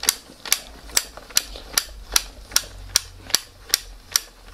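35mm bulk film loader's crank being wound, its counter clicking at an even pace of about two and a half clicks a second; each click marks one frame of film wound into the cassette.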